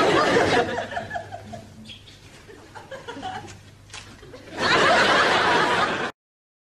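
Studio audience laughing. The laughter dies down, swells again loudly about four and a half seconds in, then cuts off suddenly.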